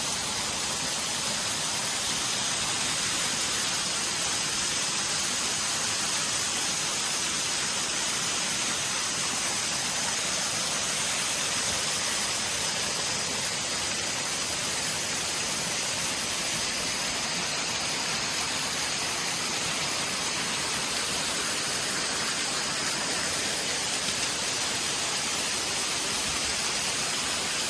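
Waterfall in heavy flow, a steady loud rush of falling water close by, with no change.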